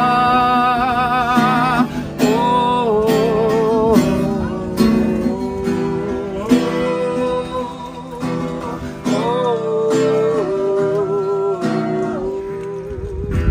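A man singing a slow melody with vibrato while strumming an acoustic guitar.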